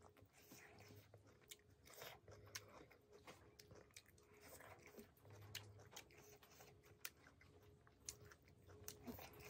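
Faint close-up eating sounds: a person chewing, with soft wet smacks and clicks at irregular intervals.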